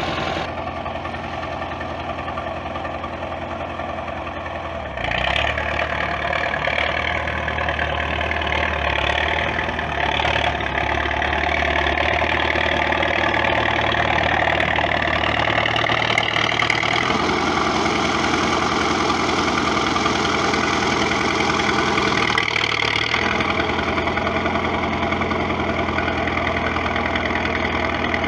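Crawler tractor engine running steadily as the tractor pushes manure with its dozer blade, getting louder about five seconds in.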